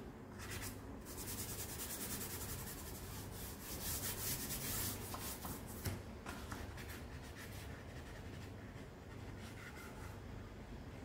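Charcoal scratching and rubbing against drawing paper in quick back-and-forth strokes. The strokes are densest and loudest in the first half and become fainter and sparser later on.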